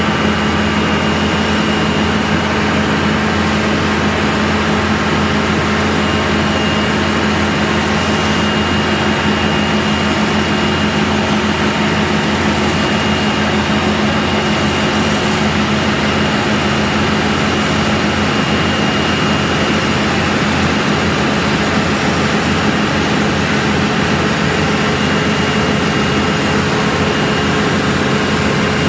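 A Wirtgen cold recycling machine running at close range: a steady heavy diesel drone with a constant low hum and a thin high whine over it, unchanging throughout.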